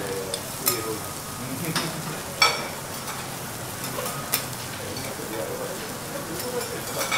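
Steady sizzling on a hot teppanyaki griddle, with sharp metallic clinks of small stainless steel saucepans and a steel spatula, the loudest about two and a half seconds in.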